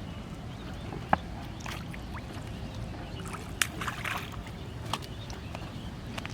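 Water sloshing and splashing over a low steady rumble, with a few sharp clicks.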